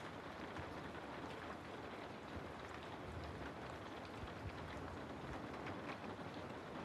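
Steady rain falling through forest trees, an even hiss with many scattered drop ticks.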